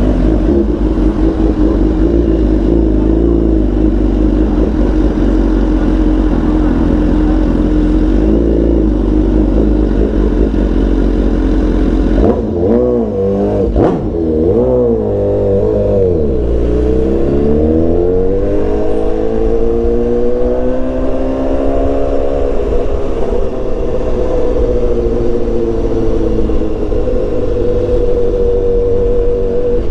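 BMW S1000XR inline-four engine running at steady revs, then dropping with a few quick dips in pitch about halfway through as the throttle is closed and gears change. It then pulls up in a smooth rising climb and settles back to a steady cruise.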